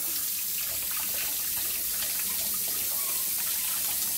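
Kitchen tap running steadily into a stainless steel sink, the stream splashing over dishes and a potato being rinsed and rubbed by hand.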